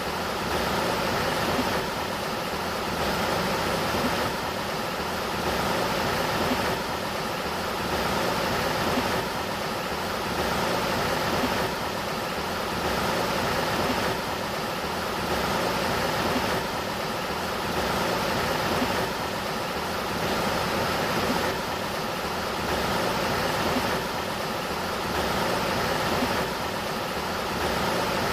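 River water flowing in a steady rush, swelling gently every two to three seconds, with a faint steady hum beneath it.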